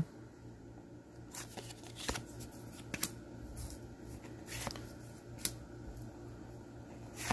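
Cardboard trading cards slid and flicked one by one off a hand-held stack: soft paper rustling with several short, sharp flicks spread through.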